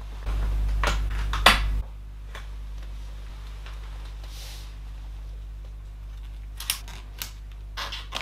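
Sharp clicks as a laptop RAM module's spring retention clips are pushed open and the stick is released, over a low rumble of hands handling the chassis. Near the end comes a cluster of lighter clicks from handling small parts inside the laptop.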